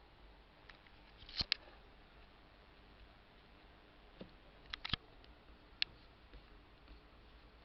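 Clicks of a computer's pointer buttons: a quick double click about a second and a half in, then a short cluster of clicks near five seconds and a single click just after.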